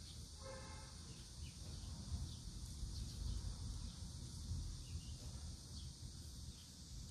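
Outdoor ambience: a steady high insect drone over a low, fluttering rumble, with one brief high-pitched call about half a second in.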